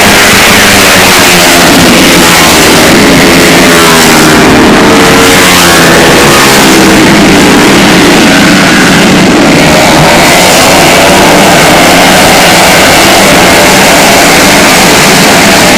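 130 cc automatic scooter engine running and being revved, its pitch rising and falling several times. It is very loud, close enough to overload the recording.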